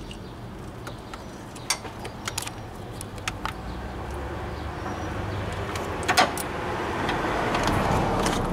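Light metallic clicks and clinks from a hand tool working a worm-drive hose clamp on a heater hose, with a louder double click about six seconds in. A rush of noise builds over the last few seconds.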